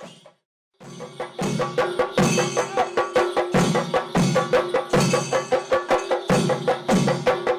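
Fast, dense drumming with heavier low beats about every two-thirds of a second over a steady held tone, starting after a short gap of silence.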